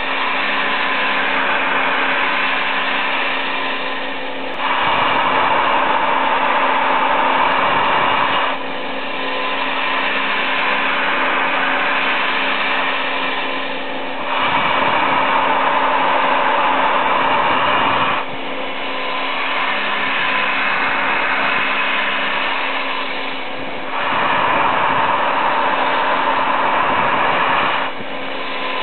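CNC milling machine spindle and end mill cutting UHMW polyethylene, a steady machining whir with a constant hum beneath. It swells louder for about four seconds three times as the cutter makes its passes.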